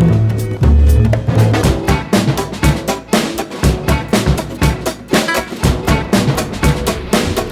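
Background music with a drum kit beat and bass.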